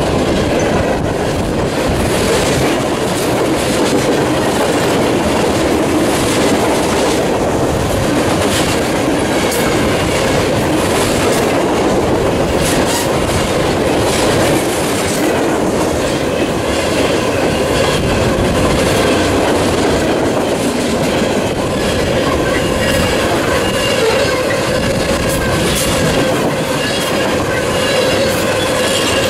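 A train's railroad cars rolling past close by: a steady rumble of steel wheels on rail with scattered clicks over the rail joints. Thin, high squealing tones from the wheels come in about halfway through.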